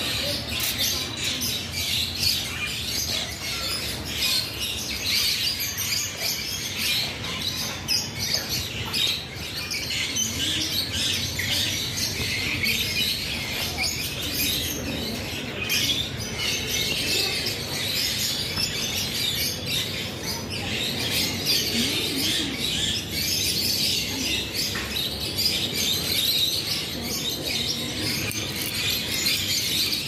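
Many small birds chirping and chattering together in a dense, unbroken high-pitched chorus.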